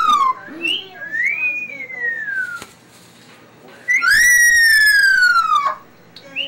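Moluccan cockatoo calling loudly during its crest-raised display: whistle-like calls that slide downward in pitch. One trails off just after the start, a softer rising-and-falling whistle comes about a second in, and a long loud downward-sliding call follows about four seconds in.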